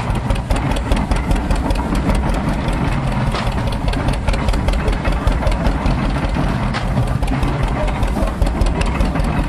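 Tractor engine running steadily as it belt-drives an antique stationary straw baler, with many quick clicks and clatter from the machinery.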